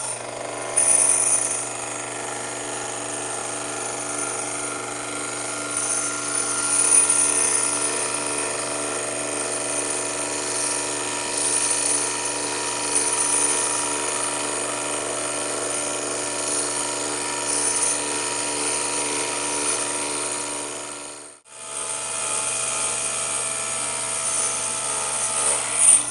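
Taig lathe's spindle motor running under load while the tool takes a light cut, 1/100 inch per pass, into the chuck's jaws, with the CNC cross slide feeding slowly. A steady hum with several whining tones, and a high hiss from the cut that swells and fades. The sound cuts out for a moment about 21 seconds in.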